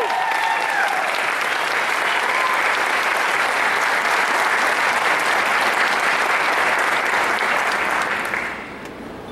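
Theatre audience applauding after a ballet solo, with a cheering voice at the start; the clapping dies away about eight and a half seconds in.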